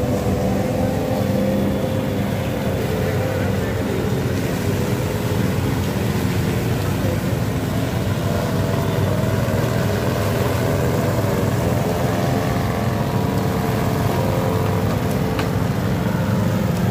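Small petrol lawn mower engine running steadily while cutting tall grass, its pitch wavering slightly under the changing load.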